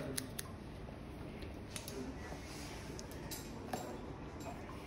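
Hair-cutting scissors snipping through a section of hair held over a comb: a few separate, crisp snips with pauses between them.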